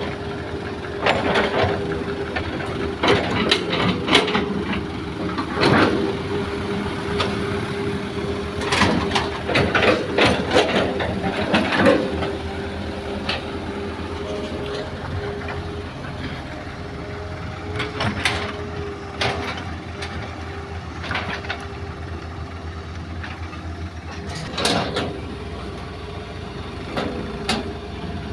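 Hitachi hydraulic excavator and dump truck diesel engines running, with a steady whine, as soil is loaded. Repeated clatters and thuds of earth and clods dropping into a steel dump-truck bed come in clusters, most often in the first half.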